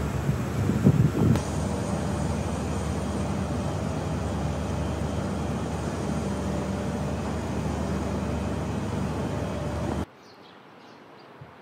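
Steady rumble of vehicle noise, with a few thumps in the first second or so. About ten seconds in it cuts off abruptly, leaving a much quieter background.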